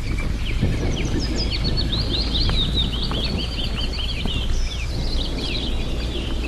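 Small songbirds chirping, a dense run of short, quick, high down-slurred notes that is busiest in the middle, over a steady low rumble.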